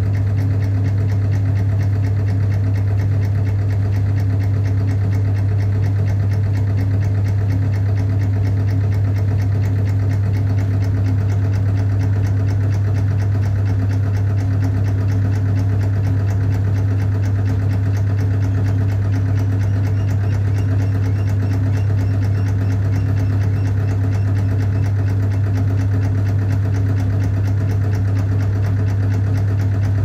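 Electric hydraulic pump of a concrete compression testing machine running with a steady low hum while it loads a concrete test cube.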